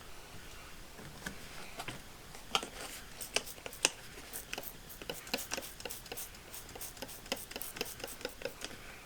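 A run of small, sharp, irregular clicks and ticks that comes faster in the second half.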